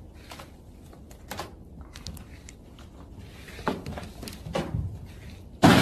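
Bare feet stepping on wooden dock boards, a few soft scattered thumps, then a sudden loud impact near the end.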